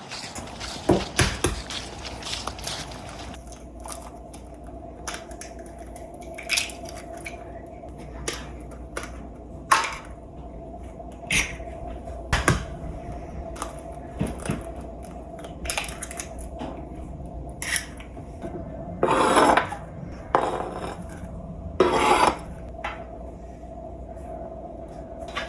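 Kitchen handling sounds: scattered clinks and knocks of dishes and utensils being set down and moved. A faint steady hum starts a few seconds in, and two longer rushing bursts of about a second each come near the end.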